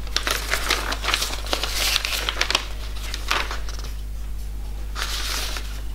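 Sheets of paper rustling and crinkling as they are unfolded and leafed through, in several short bursts, over a steady low hum.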